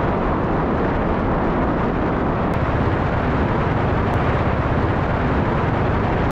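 Steady wind rush on a bike-mounted camera's microphone while riding a road bike at speed, with a low rumble.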